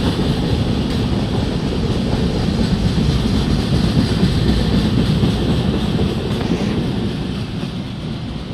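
Indian Railways passenger coaches rolling past on the track: a steady rumble of wheels on rails, easing off a little near the end as the last coach, a luggage van, goes by.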